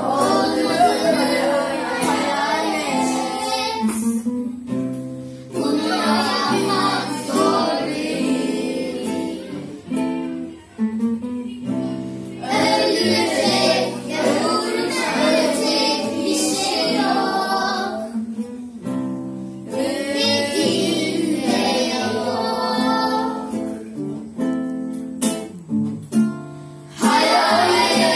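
Acoustic guitar accompanying children singing a song, the sung phrases broken by short guitar-only passages.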